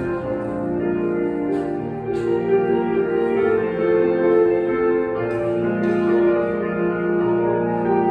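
Piano being played: slow music of held chords that change every second or so.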